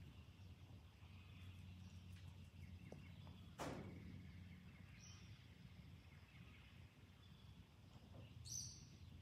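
Quiet outdoor ambience with a faint steady low hum, one sharp click about a third of the way in, and a few faint high bird chirps, the clearest near the end.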